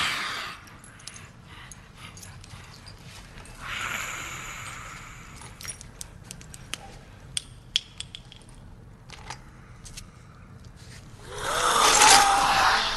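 Film soundtrack: a low, quiet rumble with a breathy hiss about four seconds in and scattered sharp clicks, then near the end a loud, rasping, breathy vocal cry from an infected creature.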